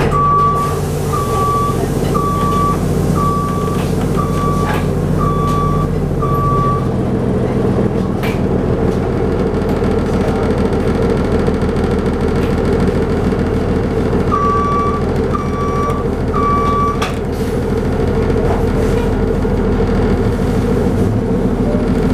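Orion VII NG hybrid bus's reverse warning alarm beeping at one high pitch, seven evenly spaced beeps, then after a pause three more, over the bus's drivetrain running with a steady drone.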